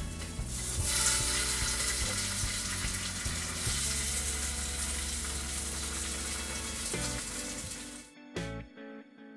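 Syrniki (cottage-cheese pancakes) sizzling as they are laid one by one into a hot Teflon frying pan, with background music underneath. The sizzle starts about a second in and cuts off abruptly near the end.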